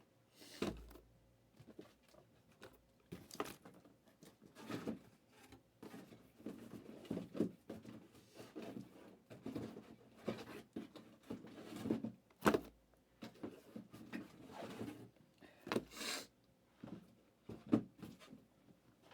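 Cardboard trading-card boxes and packs being handled on a table: irregular rustling, sliding and scraping, with a few light knocks of cardboard set down.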